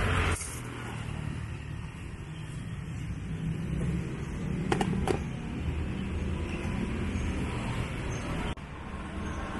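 Roadside traffic ambience: a steady low rumble of passing cars and motorbikes, with two short light clicks about five seconds in.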